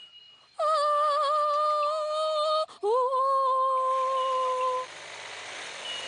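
A cartoon voice singing two long held notes: the first wavers slightly, the second slides up into a steady, lower pitch. A faint hiss with a few small high chirps follows near the end.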